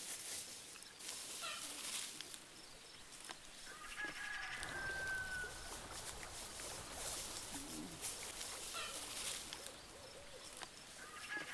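Farmyard bird calls: a rooster crowing in a long pitched call about four seconds in and again near the end, with softer bird calls over a steady outdoor hiss.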